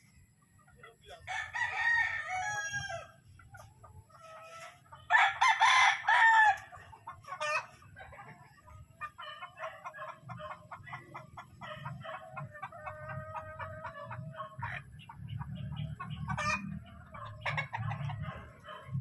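Roosters crowing twice, about one and five seconds in, followed by a long run of quick clucking from the caged fowl.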